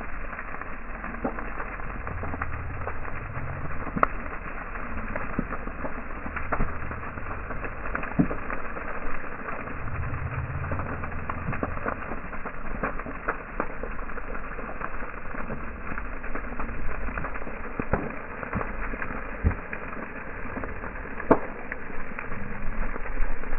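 Large bonfire burning an old boat, crackling steadily with scattered sharp pops and a low rumble.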